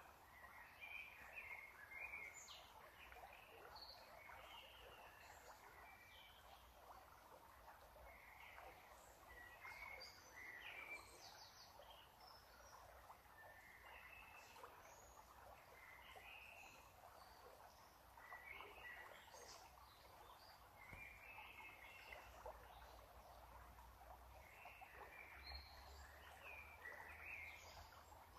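Faint bird chirps: short, scattered calls coming in small clusters every second or two over a quiet background hiss.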